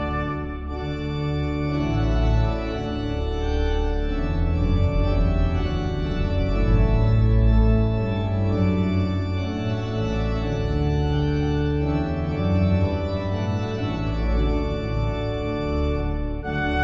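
Organ music playing held chords over a moving bass line.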